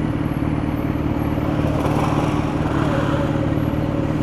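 Kawasaki Z900's inline-four engine running at a steady, even speed while riding, mixed with wind and road noise.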